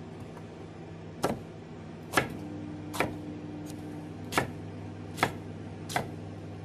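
Kitchen knife chopping red capsicum on a wooden chopping board: six sharp knocks of the blade hitting the board, roughly one a second, over a steady low hum.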